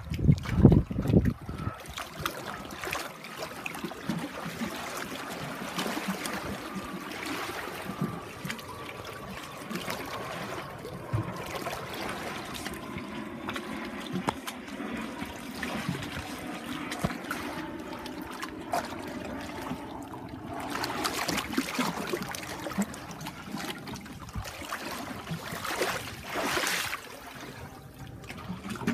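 Shallow stream water running and trickling over and around shoes standing in it, with a few loud low thumps about a second in.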